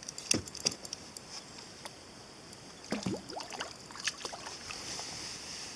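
Water splashing and sloshing at the boat, with two sharp clicks near the start.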